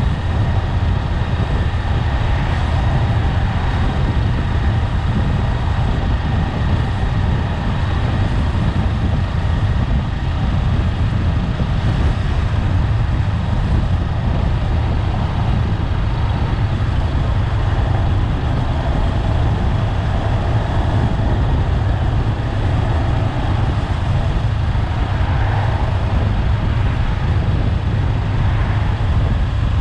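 Honda 400X motorcycle on the move at a steady pace: its parallel-twin engine running under a heavy rush of wind noise, with no gear changes or revving.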